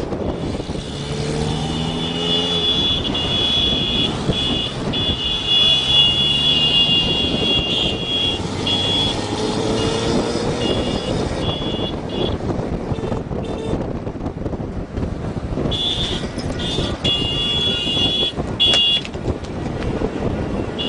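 Car driving fast, with heavy road and wind noise. A high, steady, layered tone cuts in and out over long stretches.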